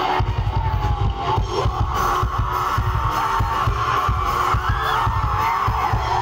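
Live rock band playing loudly: electric guitars over rapid, dense drum beats, with a wavering melody line on top.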